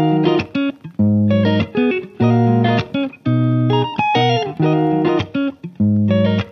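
Background music led by guitar, playing short plucked phrases with brief gaps between them.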